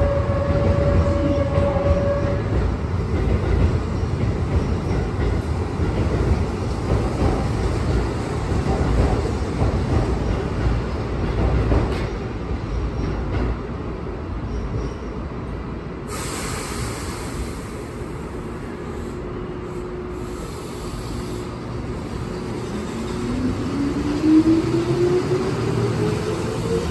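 Keihan 8000-series electric train standing at the platform with its equipment running, then pulling away: near the end its motor whine rises steadily in pitch as it accelerates, over a continuous rumble.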